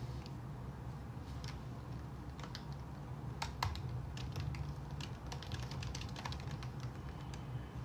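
Typing on a computer keyboard: quick, irregular key clicks, thickest in the middle, over a steady low hum.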